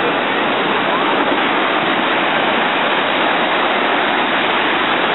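Ocean surf breaking and washing up the beach, a loud, steady rush of waves and foam.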